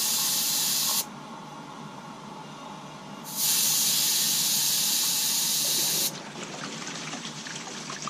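Air hissing out of the valve of an inflatable rubber pipe test plug as it is deflated to release the test water from the drain line. The hiss stops about a second in, starts again after about two seconds and runs for nearly three more before cutting off.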